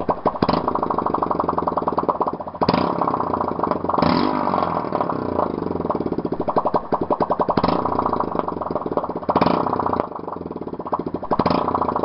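Honda CG Titan trail bike's single-cylinder four-stroke engine running without its exhaust pipe, open and unsilenced, with a fast even pulse. The throttle is opened briefly several times.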